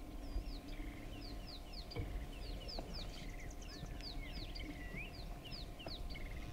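Wild birds calling in the bush: a busy chorus of short, high, downward-slurred notes, several a second, over a low outdoor rumble.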